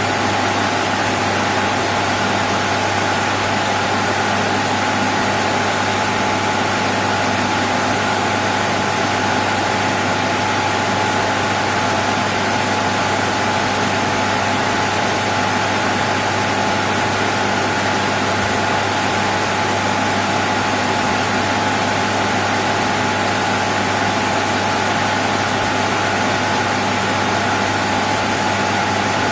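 Computer server room ambience: the steady whir and hiss of PC cooling fans with a constant electrical buzz, even and unchanging.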